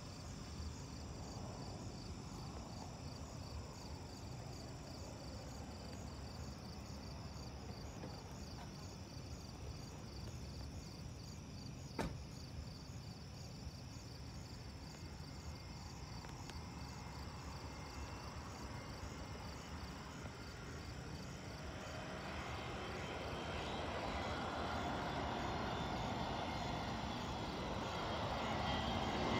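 Crickets chirping steadily with a faint low rumble, then an approaching aircraft's engines rising gradually from about two-thirds of the way in and growing louder to the end. A single sharp click about halfway through.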